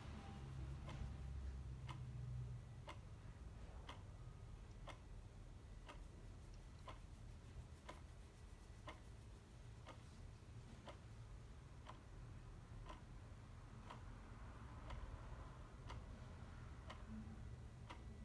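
Clock ticking steadily, about one faint tick a second, over a low background rumble.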